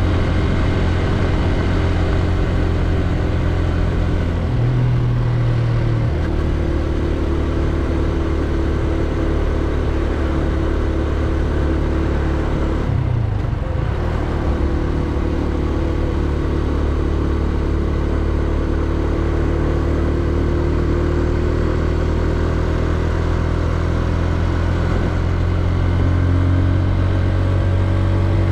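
Benelli Leoncino 125's single-cylinder four-stroke engine running under way. Its note shifts briefly about five seconds in and breaks off for a moment about thirteen seconds in, like a gear change, then climbs slowly in pitch as the bike gathers speed.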